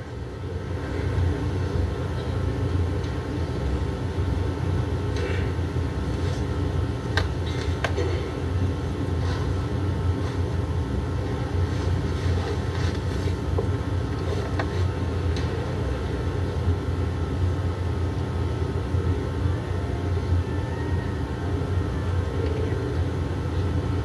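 Steady low rumble and hum of background room noise, with a few faint clicks and knocks scattered through it.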